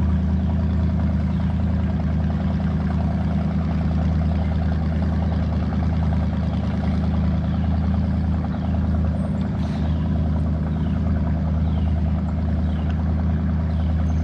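Boat motor running steadily at a constant speed, a loud, even low hum.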